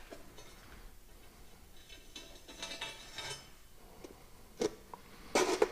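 Small metal objects handled on a steel plate and bench: a faint scraping, then a few sharp metallic clinks, the loudest near the end.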